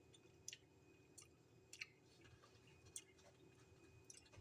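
Very faint chewing of a taste of food, heard as four or five soft mouth clicks and smacks spaced about half a second to a second apart, over a faint steady hum.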